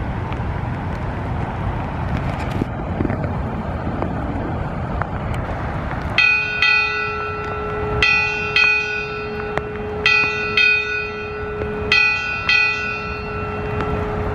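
A brass ship's bell struck eight times in four pairs, each stroke ringing on into the next: eight bells sounded in memory of a mariner who has died. For the first six seconds or so, before the bell, there is only a steady low outdoor rumble.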